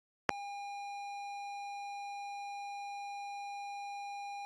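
ZX Spectrum cassette loading signal: after a click a fraction of a second in, the steady, high pilot (leader) tone of the tape runs on without change, the lead-in before the program header's data.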